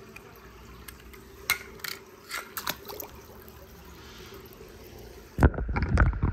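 Faint water dripping with a few small clicks and plinks, then about five seconds in a sudden loud splash and sloshing as a toy car drops into a pool of water.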